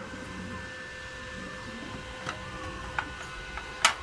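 A newly switched-on electric welding machine idling with a steady hum made of several even tones, with a few sharp clicks, the loudest near the end.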